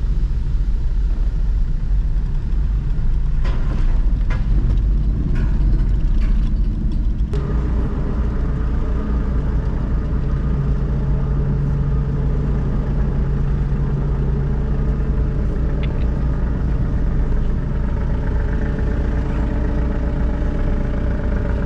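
Car engine running under a steady low rumble. About seven seconds in, the sound changes to a steadier hum with several tones in it.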